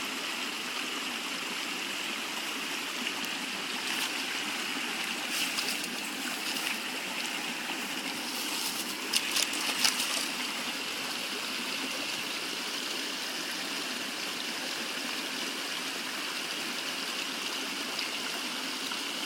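A river stream flowing steadily over stones, with a short run of sharp splashes about nine to ten seconds in.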